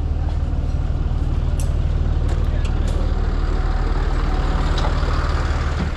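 Heavy tow truck's diesel engine running steadily under load, with a few light clicks about one and a half to three seconds in.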